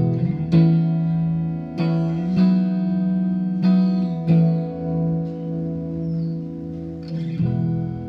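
Electric guitar played through a Marshall JVM410H all-valve amp head on its clean channel with reverb: about seven chords or notes struck and left to ring, with a longer gap before a last one near the end.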